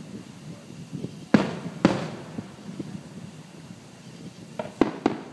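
Aerial firework shells bursting: two loud booms about half a second apart, each with a trailing echo, then a quick run of three sharper bangs near the end.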